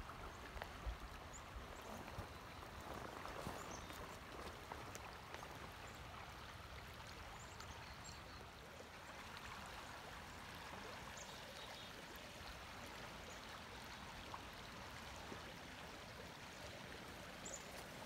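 River current flowing over a shallow, rippled stretch: a faint, steady rush of water.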